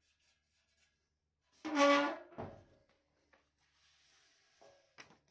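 A short, loud, high-pitched squeak about two seconds in, then a fainter, lower one. Near the end there is soft paper rustling and two light clicks.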